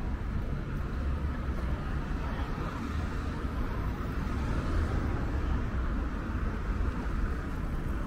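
Steady city street traffic noise from passing cars.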